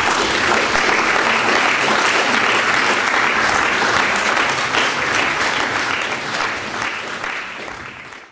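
Audience in a large hall applauding: steady, dense clapping that eases a little near the end and then cuts off.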